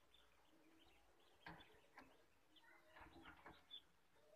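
Near silence, with faint bird chirps in the background and a few soft clicks as duck eggs are set one by one on the incubator's egg rack.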